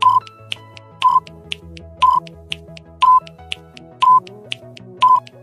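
Countdown timer sound effect: six short electronic beeps, one a second, with fainter ticks between them, over soft background music.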